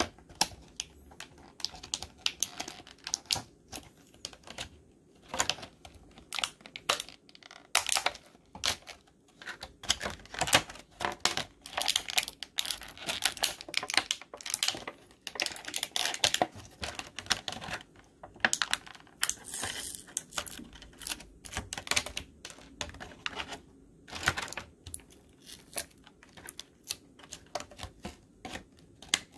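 Thin clear plastic bags crinkling and rustling as they are handled and pulled open, mixed with irregular small clicks and taps of hard plastic action-figure parts.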